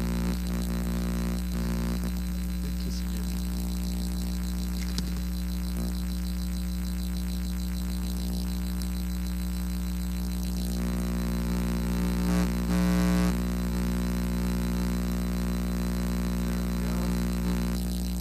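Steady low electrical hum with a buzzy edge, the sound of mains hum in the microphone audio chain; it swells briefly into a louder buzz a little past the middle.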